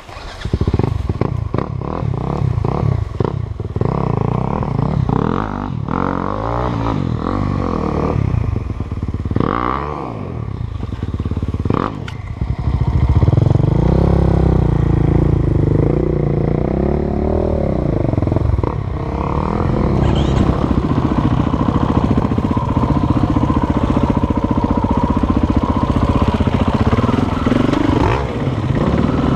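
KTM 450 EXC-F's single-cylinder four-stroke engine catching about half a second in, then running at varying revs, rising and falling. It is louder and steadier from about thirteen seconds in.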